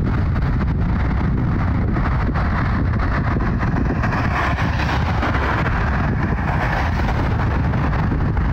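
Twin-engine business jet flying overhead: a steady broad rushing noise that swells about four seconds in and eases toward the end.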